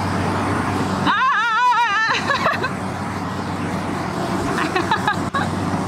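Rice combine harvester's engine running with a steady hum. About a second in, a brief wavering, warbling call sounds over it.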